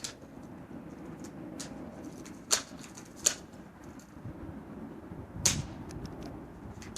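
BB gun firing: a few sharp cracks, three loud ones about 2.5, 3.3 and 5.5 seconds in, with fainter clicks between.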